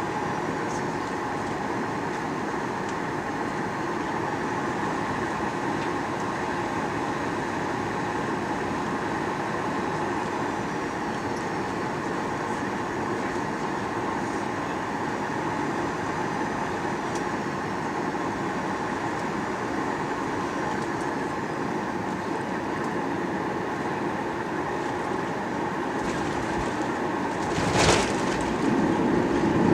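Steady cabin noise inside a Boeing 737-800: engine hum and airflow. A sudden thump comes near the end, and after it a louder, lower rumble begins.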